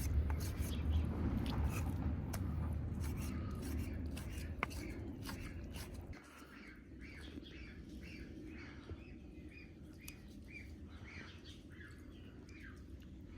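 Small birds chirping in a run of short repeated calls, about one or two a second. For the first half they sit under a low rumble with scattered clicks, which stops abruptly about six seconds in.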